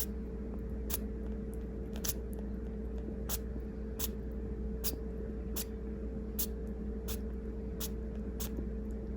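A sugar glider's tiny sneezes: about a dozen short, sharp puffs coming a little more than one a second, over a steady low hum. The repeated sneezing is a sign of something irritating her nose.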